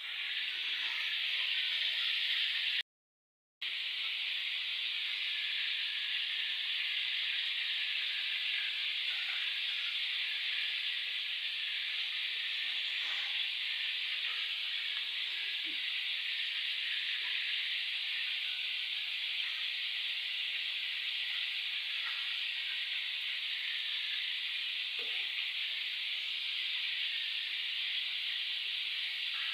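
Flour-coated chicken pieces frying in hot oil: a steady, even sizzle that cuts out for a moment about three seconds in.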